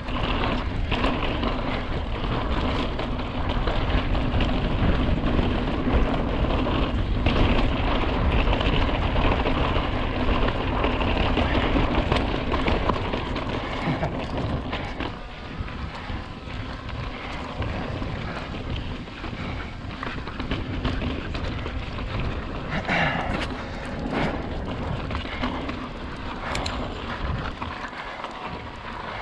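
Wind buffeting an action-camera microphone on a mountain bike riding over slickrock, with the rumble and rattle of the bike under it. A few sharp knocks come in the last third.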